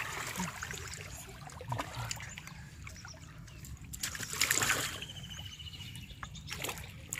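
Shallow river water sloshing and trickling as hands grope inside a bamboo polo fish trap pressed to the riverbed, with a louder splash about four seconds in and a shorter one near the end.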